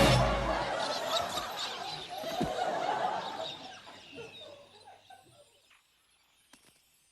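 Canned studio-audience laughter, loudest at the start and dying away over about five seconds.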